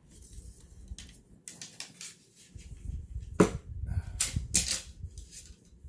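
Handling noises on a tabletop: a string of short rustles, taps and knocks as the purse and things around it are moved, with the sharpest clicks a little past the middle.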